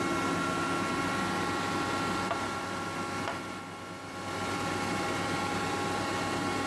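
Steady hum of running woodworking machinery, the spindle shaper and its power feeder, a constant drone with several steady tones. There are a couple of faint knocks around two and three seconds in.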